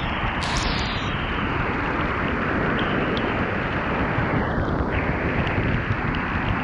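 Waterfall pouring into a rock pool: a loud, steady rushing of falling water.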